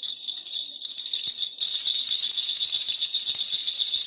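A continuous rapid high-pitched rattle.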